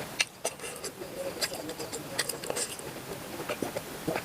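Close-up chewing of cooked octopus: irregular wet mouth clicks and smacks.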